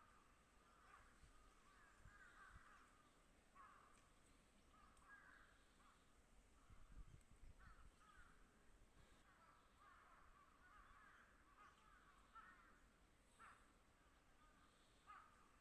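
Faint wild birds calling, with many short calls following one another.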